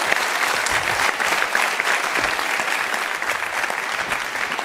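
Studio audience applauding, a dense patter of many hands clapping that eases off slightly near the end.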